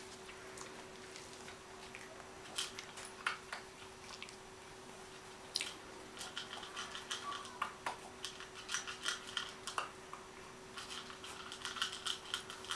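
Small clicks and taps from a Cavalier King Charles spaniel puppy moving about on a parquet floor and mouthing a rubber ball. The clicks come thicker about six seconds in and again near the end, over a faint steady hum.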